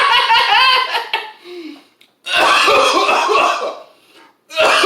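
A man coughing, a long harsh cough about two seconds in and a shorter one near the end, set off by the burn of 2x-spicy fire-noodle sauce. A brief vocal sound comes just before.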